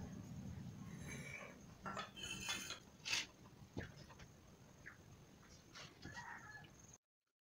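Faint clinks and scrapes of stainless steel plates and bowls as rice and dal are mixed and eaten by hand, with a few sharper clinks between about two and four seconds in. The sound cuts off to silence near the end.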